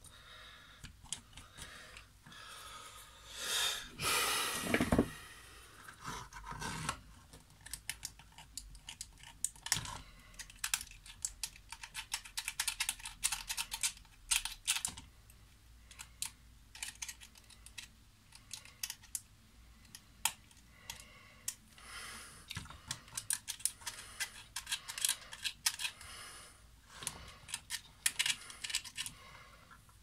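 Small tool scraping and clicking against the plastic connectors and contacts of a coffee machine's wiring, in an irregular run of quick small clicks and scratches: oxidised connectors being cleaned. A louder burst of rustling noise comes about four seconds in.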